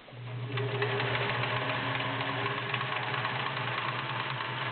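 Kenmore model 1720 all-metal sewing machine starting up and running steadily at speed, a motor hum under fast, even ticking from the needle mechanism, stitching a cam-guided snake pattern.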